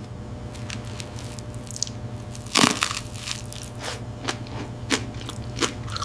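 A series of irregular crunches and crackles, the loudest about two and a half seconds in, over a steady low hum.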